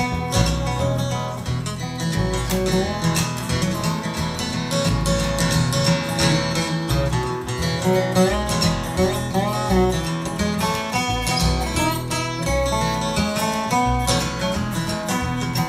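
A bluegrass trio plays an instrumental break without singing. An acoustic guitar strums, an upright bass plays bass notes, and a lap-played resonator guitar (dobro) takes the lead with sliding notes.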